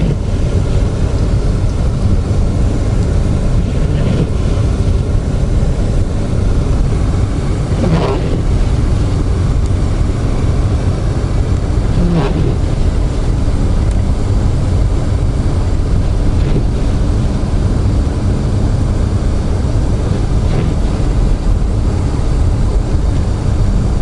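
Steady low rumble of a car driving on snowy roads, heard inside the cabin. A windshield-wiper sweep swishes across the glass about every four seconds.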